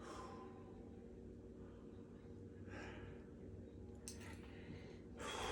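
A man breathing hard and winded, with soft exhales about every two and a half seconds, and a single faint click about four seconds in.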